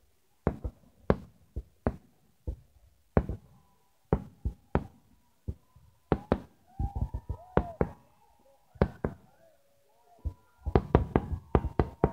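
Aerial fireworks shells bursting overhead: a string of sharp bangs a fraction of a second to a second apart, coming thick and fast in the last second or so.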